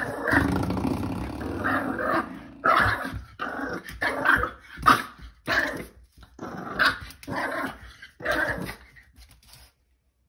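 A dog growling for about two and a half seconds, then barking in a string of short barks roughly every two-thirds of a second, stopping shortly before the end.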